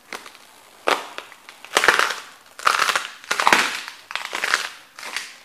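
Celery stalks crunching and snapping under a hiking boot as it presses down on them again and again. There are about seven crackling crunches, a little under a second apart.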